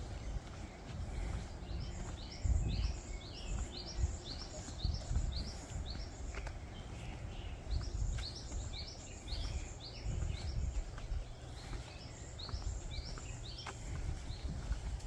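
Small birds calling outdoors, with many short rising chirps repeated in quick runs, over a low, uneven rumble.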